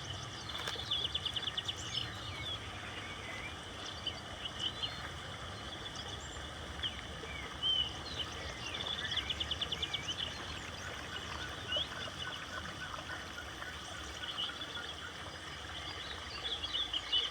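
Several birds singing and calling, with bursts of fast repeated trilling notes about a second in and again around nine seconds, over a steady low background rumble.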